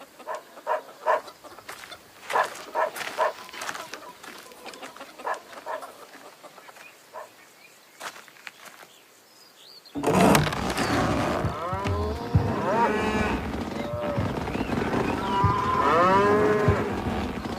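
Animal calls: short, separate calls repeating for about ten seconds, then a sudden loud din of many overlapping calls that rise and fall in pitch.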